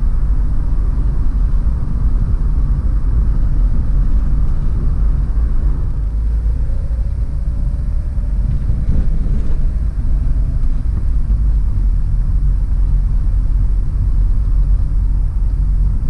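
Campervan driving at steady speed, heard from inside the cab: a steady low rumble of engine and tyre noise.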